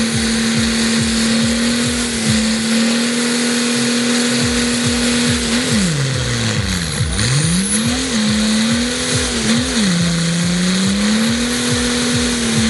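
Car engine held at high, steady revs during a stationary burnout, the rear tyres spinning against the ground. About halfway through the revs fall away and climb back, then dip and recover once more a little later.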